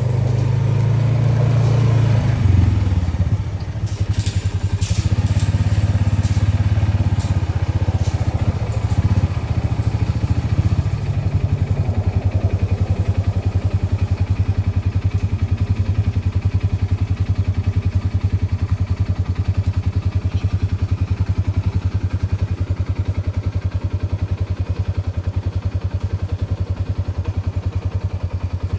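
A Ranger utility vehicle's engine running with a low, even pulse. There is some clattering in the first several seconds, and the engine settles into a steady run after about eleven seconds.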